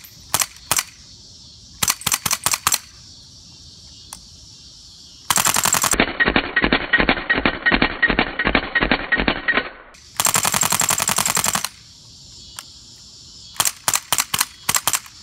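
Daytona Gun gas-powered airsoft AK firing: a few single shots and short bursts, then a long rapid full-auto burst through the middle, then more short bursts near the end.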